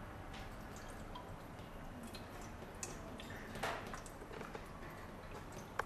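Water poured from a small glass into the narrow filler neck of a wet towel dispenser's plastic water tank, trickling and dripping in small irregular splashes, with a louder splash a little past halfway.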